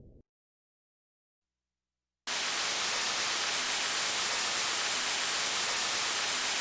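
Steady white-noise hiss from a Roland SC-D70 synthesizer's sound-effect preset, starting abruptly about two seconds in after silence and holding at an even level. Right at the start, the last of a low rumble cuts off.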